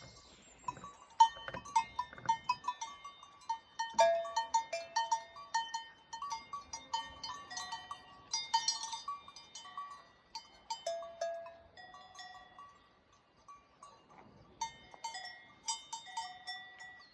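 Several cowbells of different pitches clanking irregularly as grazing cattle move, each strike ringing briefly. The clanking is dense through the first ten seconds, thins out for a couple of seconds, and picks up again near the end.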